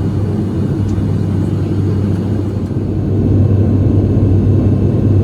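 Airliner engines droning steadily as heard from inside the passenger cabin, with a strong low hum; the drone grows louder about three seconds in.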